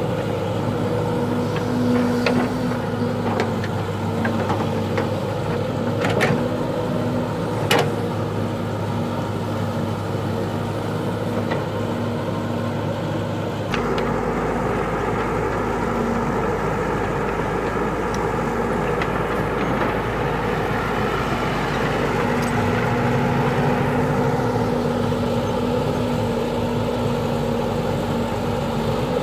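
Caterpillar E120B hydraulic excavator running steadily while its bucket digs and scrapes soil, with several sharp knocks in the first half. About halfway through the sound changes abruptly and the engine runs on.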